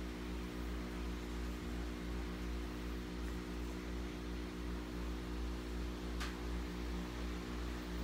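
Electric stand fan running with a steady hum and hiss, and a faint tick about six seconds in.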